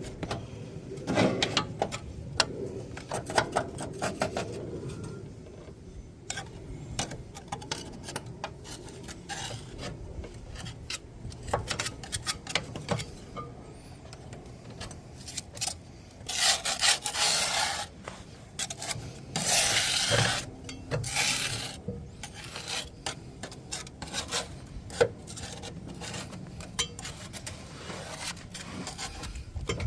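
Scraper working along the underside of a mower deck, scraping off caked-on grass buildup: a run of short, rasping scrapes, with a few longer, louder strokes a little past halfway.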